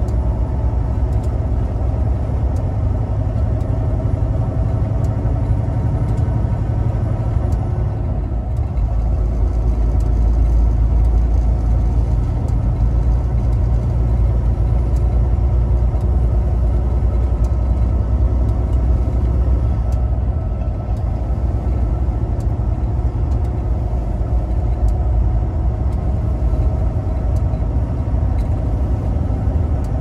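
Semi-truck's diesel engine and tyres droning steadily inside the cab as the truck drives on.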